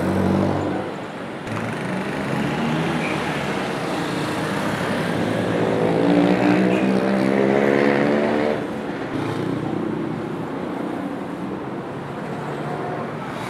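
Street traffic on a busy city avenue: steady road noise with motor vehicles passing. One engine rises in pitch over several seconds as it accelerates, then drops away about eight and a half seconds in.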